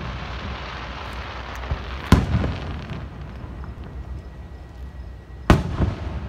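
Aerial fireworks bursting overhead: two loud booms, about two seconds in and again near the end, each followed by a rolling echo, with hissing crackle from the shells in the first half.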